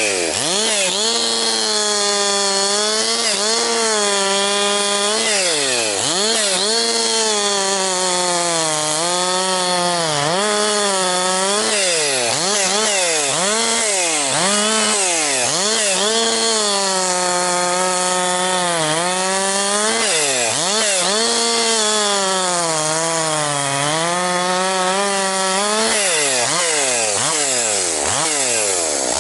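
Husqvarna 262XP single-cylinder two-stroke chainsaw running at high revs, bucking a log into firewood. Its engine note drops and climbs back up many times as it works through the cuts.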